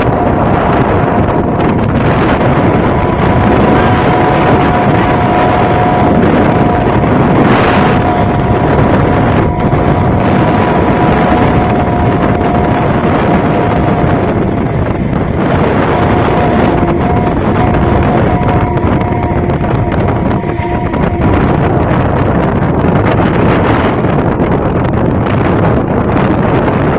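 Tuned set of Vietnamese kite flutes (sáo diều) sounding in the wind, two steady held tones together like a chord, over heavy wind noise on the microphone. The tones drop out for a moment about halfway through and grow faint later on.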